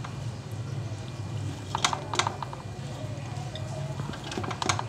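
Light clicking and tapping of cooking utensils against a pot during biryani layering, in two short clusters about two seconds in and near the end, over a steady low hum.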